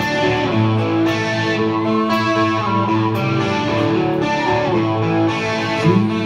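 Electric guitar played live through an amplifier as rock music, with sustained notes, sliding pitches, and a rising string bend near the end.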